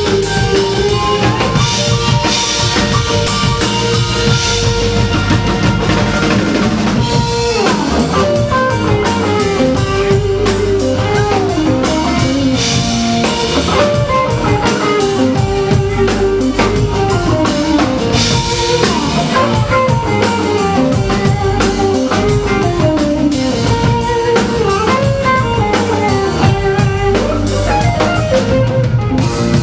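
Live rock band playing an instrumental passage: electric guitars, keyboard and drum kit, with a lead melody line running up and down in pitch over a steady drum beat.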